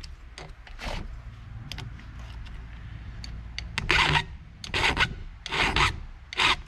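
Flat file scraping across a chainsaw chain's rakers (depth gauges) through a depth-gauge guide, lowering them about half a millimetre. A few light clicks as the file and guide are set on the chain, then four rasping strokes in the second half.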